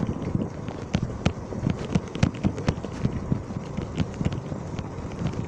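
Small open vehicle rattling and clattering over a rough road: irregular sharp knocks and clicks, several a second, over a low rumble.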